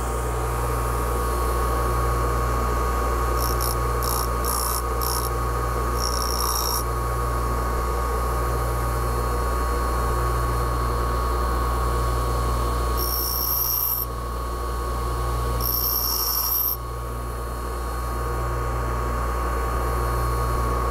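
Bench grinder motor running with a steady hum and a constant high whine, while hardened O1 tool steel is pressed against the grinding wheel to shape a boring bar's cutting edge: each touch adds a high hiss, four quick ones a few seconds in, then a few longer passes.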